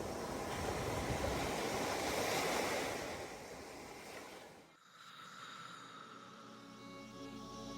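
Ocean-wave ambience, a steady wash of surf noise that fades out a little past halfway. Soft music with long held tones then comes in and grows louder near the end.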